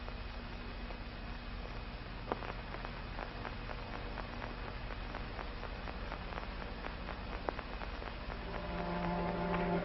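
Steady hiss and hum of an old film soundtrack, with a run of faint, quick, even clicks from about two seconds in until past the middle. Music fades in near the end.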